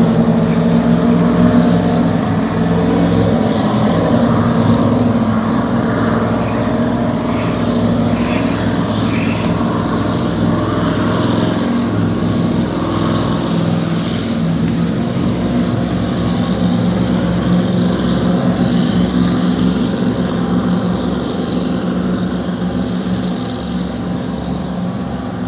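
Speedboat engines and exhaust running at speed as the boats pass along the water, a steady deep drone that eases off slightly near the end.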